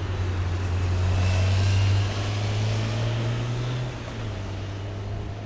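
Jet engine noise from a Boeing 767-300ER departing at takeoff thrust: a steady low rumble under a broad rushing noise that swells a second or two in and then fades as the airliner climbs away.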